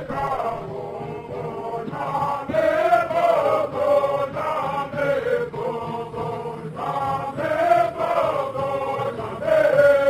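Several voices chanting a melodic song in short rising and falling phrases, moving into a long held note near the end.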